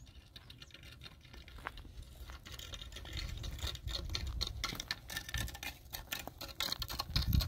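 Footsteps crunching on dry, twiggy dirt ground: a quick, irregular run of clicks that grows denser about halfway through, over a low rumble, with a heavier thump near the end.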